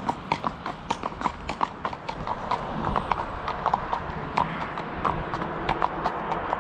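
Hooves of two Welsh Section D mares walking on a tarmac road: a steady clip-clop of about three hoofbeats a second.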